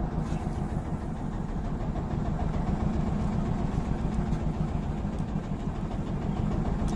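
Boat engine running steadily at an even, low pitch.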